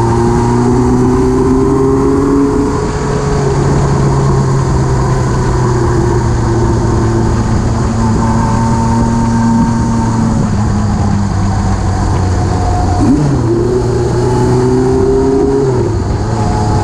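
Motorcycle engine running under way, with wind rushing past the microphone. The engine note sags slowly, then dips sharply and climbs again twice near the end.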